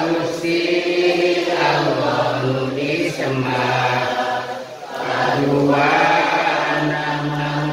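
Men's voices chanting a Sundanese nadhom, devotional Islamic verse, together in long drawn-out held notes, phrase after phrase.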